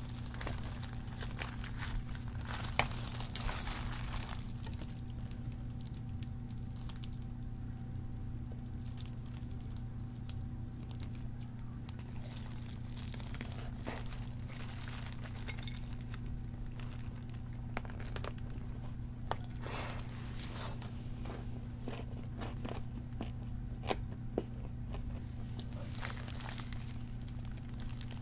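Close-up crunching bites and chewing of crispy fried chicken, with the crinkle of a thin plastic glove as the chicken is handled in the first few seconds. A steady low hum runs underneath.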